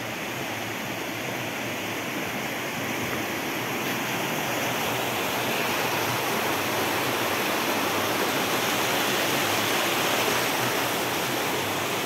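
Rushing water of a mountain waterfall, a steady, even rush that grows somewhat louder over the first half.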